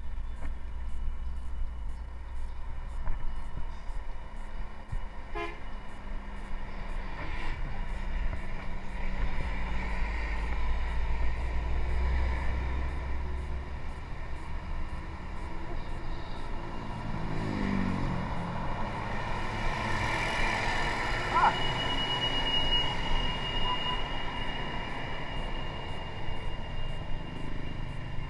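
Road traffic passing close to a moving bicycle, with wind rumbling on the microphone: heavy truck and bus engines go by, one engine note rising and falling as it passes about two-thirds of the way in. Shortly after, a vehicle horn sounds as one steady high note for about two seconds.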